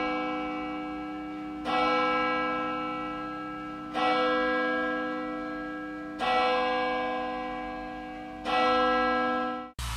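A single church bell tolling, struck four times about every two and a quarter seconds, each stroke ringing on and fading before the next. The ringing cuts off suddenly near the end.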